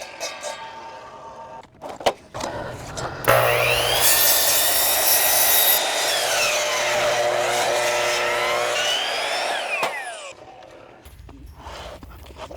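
Ryobi 12-inch sliding compound miter saw's electric motor started about three seconds in and running at full speed with a high whine, its pitch sagging as the blade bogs down in a thick log and then picking back up. The motor is switched off near ten seconds, and the whine falls away as the blade spins down.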